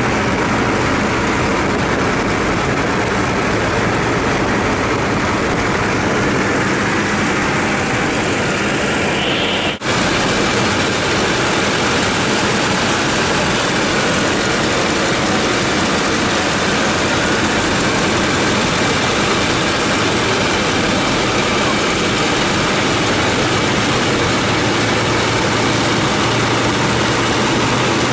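1929 Ford Tri-Motor's three Pratt & Whitney nine-cylinder radial engines and propellers droning steadily in flight, heard inside the cockpit. There is a brief dip about ten seconds in.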